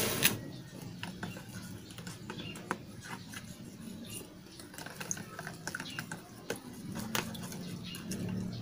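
A small paintbrush stirring a soapy liquid in a plastic tub, its handle and bristles clicking and tapping against the container at irregular moments. There is one sharp click just after the start and another about seven seconds in.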